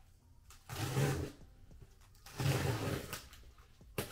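Box cutter blade slicing through packing tape and cardboard on a large shipping box: two cutting strokes, each under a second, about a second and a half apart.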